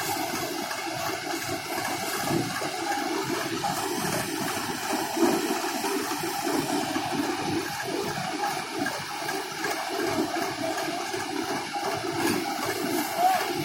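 Hira 785 combine harvester at work, a steady rushing noise with no clear engine note.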